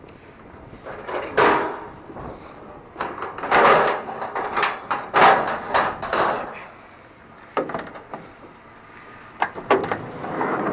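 Clunks and knocks of an old van's door and latch being worked and opened, a door that keeps locking itself.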